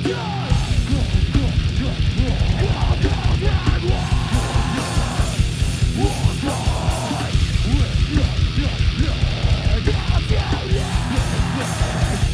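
Hardcore band playing live: fast, dense drumming with cymbal crashes, heavy guitar through a Marshall amp, and a vocalist yelling into the microphone.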